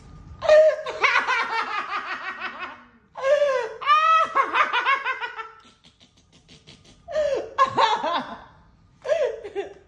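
Hearty laughter in four bouts with short quiet gaps between, the first two the longest and loudest.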